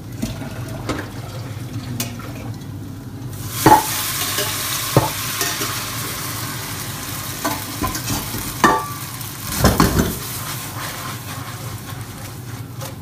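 Pasta tossed into a pan of very hot butter starts sizzling about three seconds in, and the sizzle then holds steady. Several sharp knocks of a utensil against the pan are heard while the pasta is stirred.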